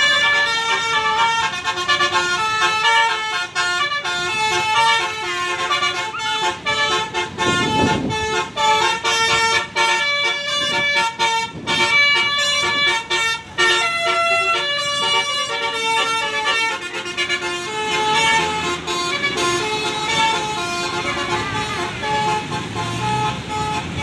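Bus telolet horn (a Basuri multi-tone musical air horn) playing a tune of short, steady notes that jump in pitch.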